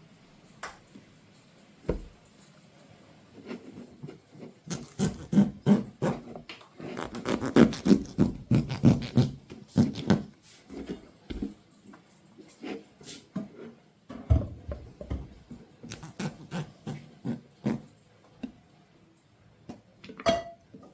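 Close-miked handling of a panettone and its packaging: irregular soft taps, rubs and squishes, thickest in the middle stretch.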